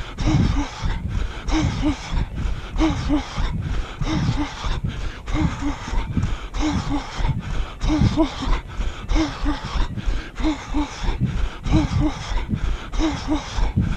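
A runner's heavy, rhythmic breathing, short voiced puffs often coming in pairs, over the regular thud of footfalls on a wet tarmac path.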